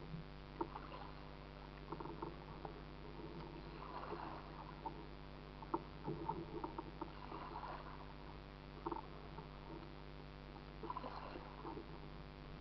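Water splashing and lapping against a kayak's hull as it is paddled, with scattered short knocks, over a steady low hum.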